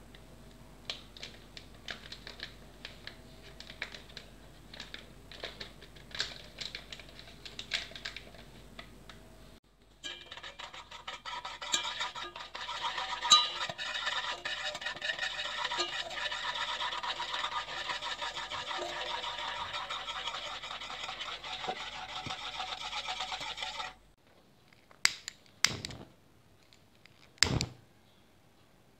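Cocoa powder being sifted through a metal mesh sieve into a steel saucepan: a steady, fast scratchy rasping for about fourteen seconds. It follows faint scattered clicks and is followed by a few sharp knocks near the end.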